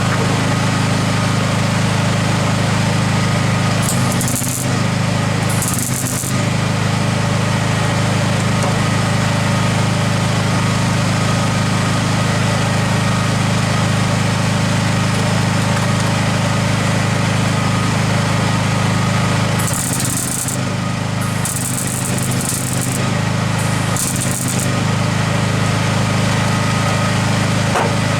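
Electric welder running on car body steel: a steady crackling arc sound, broken by a few short pauses.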